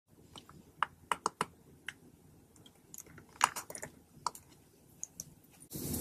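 Scattered sharp clicks and taps at irregular intervals, with quiet between them. About a second before the end a steady hiss comes in.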